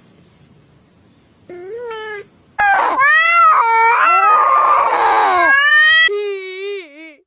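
A cat meows once, then gives a loud, long, wavering yowl that turns harsh and scream-like in the middle, followed by a few shorter wavering cries.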